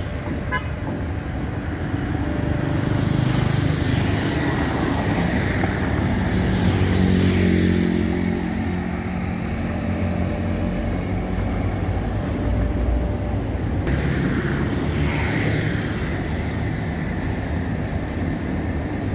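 Road traffic: a steady engine hum with motor vehicles passing by, swelling and fading three times.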